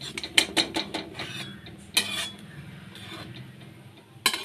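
Metal spatula scraping and clinking against a kadhai while pushing fried biscuits around in a little oil: a quick run of clinks in the first second and a half, another near two seconds, quieter scraping, then one sharp clink near the end.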